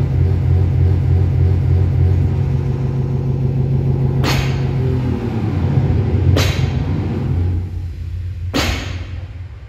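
Loaded barbell with bumper plates touching down on the gym floor between deadlift reps: three sharp knocks about two seconds apart in the second half, over a loud, low, steady rumble.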